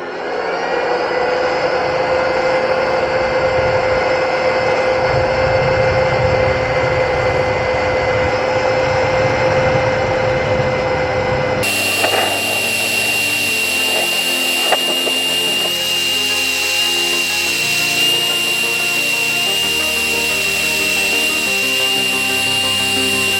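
Electric power tool motor spinning up and running at a steady speed, then after an abrupt change about 12 seconds in, running on with a higher-pitched whine. Background music plays underneath.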